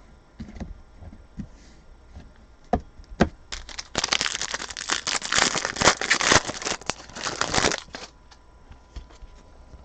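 A trading card pack's wrapper being torn open and crinkled, a dense crackling that starts about three seconds in and stops about eight seconds in, after a few scattered clicks.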